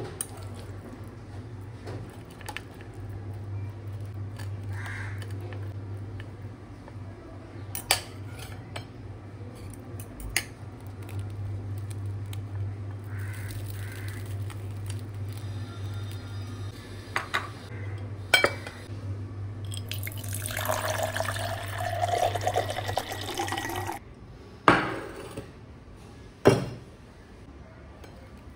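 Kitchen work over a steady low hum: a spoon and crockery clink now and then, a few seconds of running tap water come about three-quarters of the way through, then two sharp clinks of dishes.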